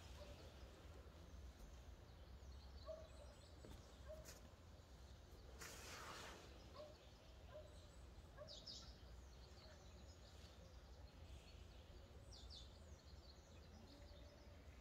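Quiet outdoor morning ambience: faint, scattered short bird calls over a low steady rumble, with a brief hiss about six seconds in.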